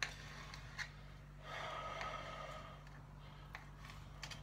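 Knife slicing raw turkey breast on a cutting board, with a few soft taps of the blade on the board, and a long breath out about a second and a half in. A low steady hum runs underneath.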